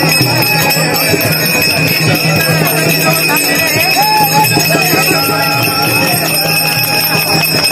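Warkari devotional music: small brass hand cymbals (tal) clashing in a fast steady rhythm and ringing on, with voices singing along.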